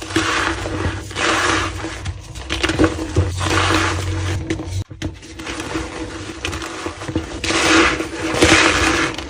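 Soft, squeaky reformed white gym chalk being crushed by hand, in a run of repeated crunching, squeaking squeezes. The sound briefly cuts out about halfway.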